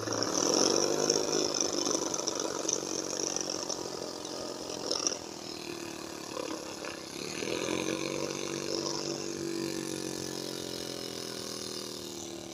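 Homemade miniature piston engine with a ball-bearing flywheel, running fast on compressed air from a pumped-up bottle: a buzzing note with a hiss of escaping air. It drops away briefly about six seconds in, picks up again, then slowly winds down near the end as the bottle's air pressure falls.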